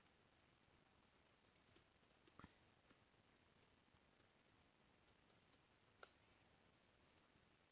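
Faint, scattered computer-keyboard keystrokes over near silence, in small clusters about two seconds in and again around five to six seconds in.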